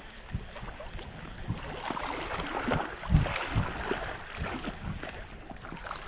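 Wind buffeting the microphone in uneven gusts, with small waves lapping and washing against the shore.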